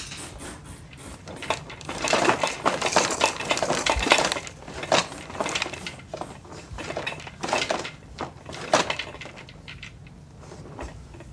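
Irregular rapid clicking and clattering of hard plastic, heaviest in the middle stretch and thinning out near the end, from a baby's activity centre and its toys being handled.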